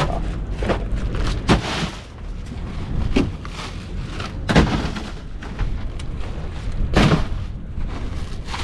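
Bags of ice dropped one after another into a boat's fish box, each landing with a dull thud: several thuds a second or two apart, over a steady low rumble.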